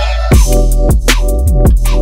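Electronic background music: a deep sustained bass and held synth chords with a kick-drum beat about twice a second, the full beat coming in about a third of a second in.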